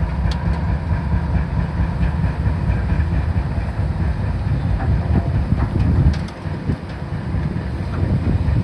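Low, steady rumble of heavy diesel plant working on a demolition site, mixed with wind buffeting the microphone; the rumble eases about six seconds in.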